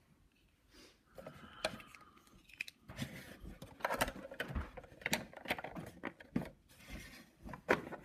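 Plastic toy fridge playset being handled: a run of irregular small plastic clicks and knocks as its parts are worked.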